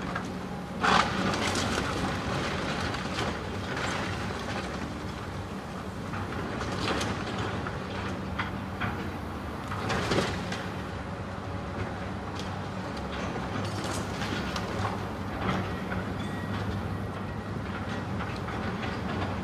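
Steady rumble of a moving vehicle with a low hum and scattered clatter, a sharp knock about a second in and another near the middle.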